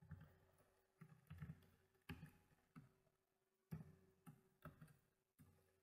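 Faint computer keyboard keystrokes: short, irregular taps, about two a second, as text is typed.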